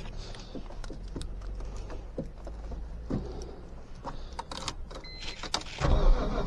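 Keys and small clicks and knocks of handling inside a BMW E46 M3, a short electronic beep about five seconds in, then the car's S54 inline-six starting up near the end on a cold start.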